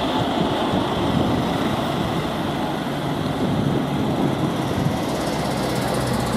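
Airbus A320neo's twin turbofan engines at takeoff power during the takeoff roll: a steady, loud jet roar.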